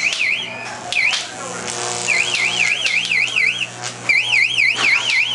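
Electronic warbling alarm: a high siren-like tone sweeping up and down about four times a second, sounding in bursts that stop and restart, over a steady low hum. A couple of short, sharp noises cut in, about a second in and near the end.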